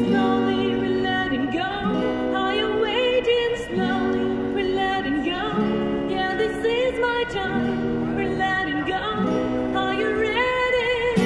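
Woman singing held, wavering notes with vibrato over strummed acoustic guitar chords. Her voice comes through a microphone and a small amplifier.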